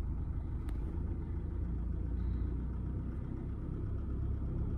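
Steady low rumble of a car's engine and road noise, heard from inside the car's cabin.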